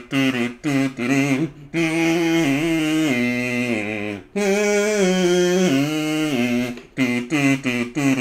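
Kazoo playing a melody: quick short notes at first, then two long phrases of held notes stepping up and down, broken by a brief gap near the middle, then quick short notes again near the end.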